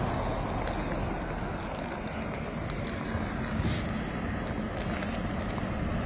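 Steady hiss and rumble of traffic on a wet, slushy highway, tyres swishing through slush.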